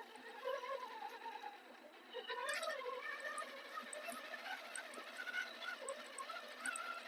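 Electric motor and gear train of a Redcat Scout RC crawler, fitted with a 12-tooth pinion, whining faintly. The pitch rises and falls as the throttle is worked.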